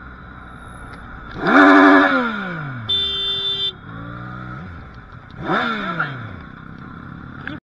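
Motorcycle engine revving twice while riding, each time rising sharply in pitch then falling away, with a smaller rise in between. A short horn beep sounds about three seconds in.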